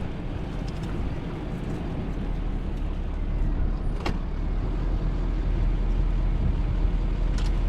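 Car or truck engine running with road noise, heard from inside the cab: a steady low rumble, with two faint clicks, one about halfway through and one near the end.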